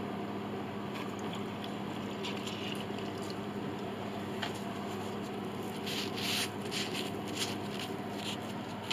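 Soft squishing and rustling as wet glue is worked into a soundboard joint by finger and the excess wiped off with a rag, the rustling busiest a little past the middle. A steady low hum runs underneath.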